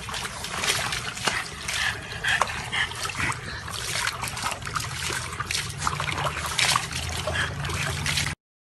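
Water splashing and sloshing in a plastic tub as a dog sitting in it moves about, in quick irregular splashes. The sound cuts off abruptly near the end.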